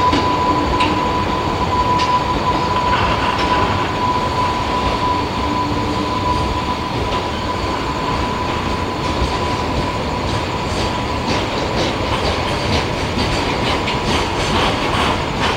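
A train rolling along the rails with a steady running noise and a constant high tone that fades after about ten seconds. Light clicking of wheels over the rail joints comes in the later part.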